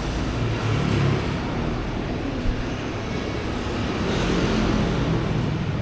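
Road traffic passing close by: a steady rumble of vehicle engines that swells as vehicles go past, about a second in and again about four seconds in.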